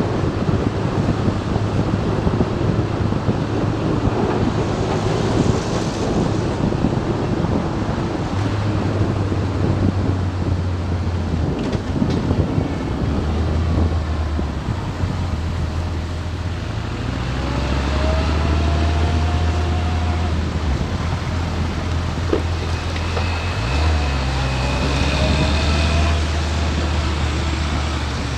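Motorcycle riding in town traffic: engine running under wind noise on the microphone, the engine note stepping up and down a few times as it speeds up and slows.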